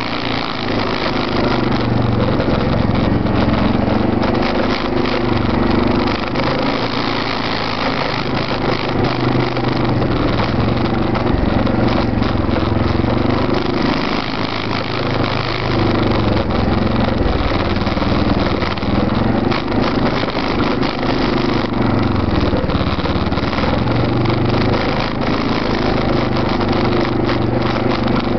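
Arctic Cat 650 H1 ATV's single-cylinder engine, heard from its rear rack, running at low, changing throttle while crawling down a rocky trail, with frequent knocks and rattles from the bumps. A second ATV, an Arctic Cat 650 V2, runs close behind.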